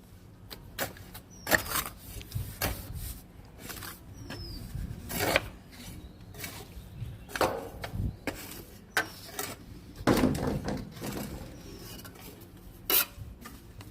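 Irregular knocks, taps and scrapes of hand construction work.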